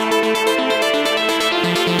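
Electronic dance music: a synthesizer melody over a fast pulse, with no kick drum in this stretch.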